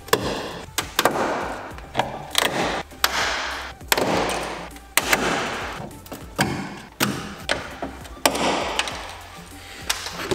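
Background music with a steady, punchy beat.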